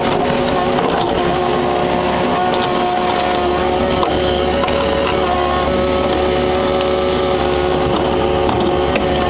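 Kubota KX61-3 mini excavator's diesel engine running steadily at working speed, with a few scattered knocks.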